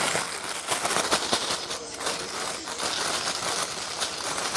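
Plastic packaging crinkling and crackling as a squishy toy is handled, a dense run of many small sharp crackles.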